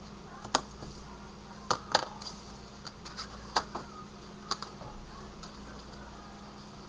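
Scattered light clicks and taps, about a dozen at irregular intervals, from craft supplies being handled on a tabletop, over a faint steady hum.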